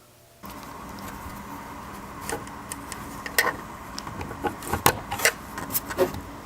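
Light clicks and knocks of parts being handled during assembly, about a dozen sharp ones in the second half. They sit over a steady hum that starts abruptly about half a second in.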